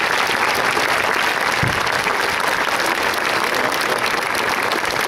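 Large crowd applauding, a steady dense patter of many hands clapping at once.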